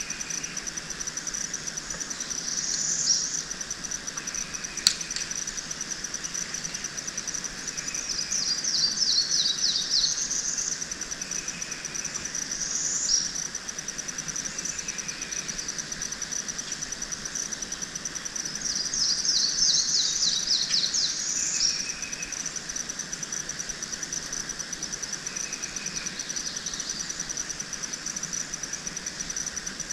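A steady, high insect trill runs without a break while birds sing short phrases several times, the longest about eight to ten seconds in and again around twenty seconds. A single sharp click sounds about five seconds in.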